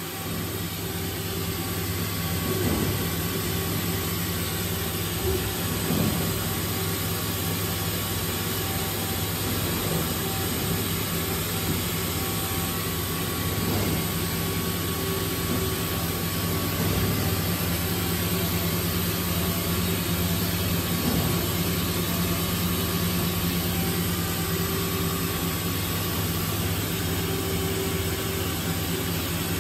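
A powered-up Okuma 2SP-150H dual-spindle CNC chucker gives a steady machine hum with several held tones, and a few faint knocks come through it.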